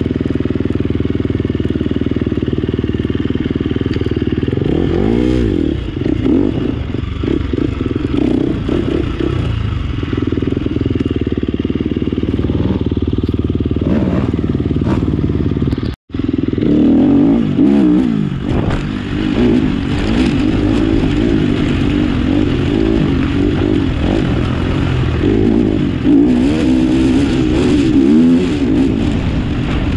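Off-road vehicle engine running and revving up and down while riding, its pitch rising and falling repeatedly. The sound drops out for an instant about halfway through.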